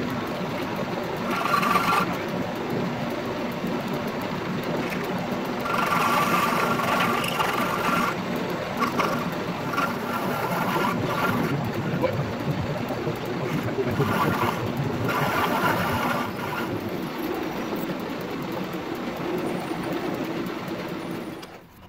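Belt-driven metal lathe running and cutting a steel rod, the cutting noise swelling in several passes over the steady running of the machine. The sound drops away suddenly just before the end.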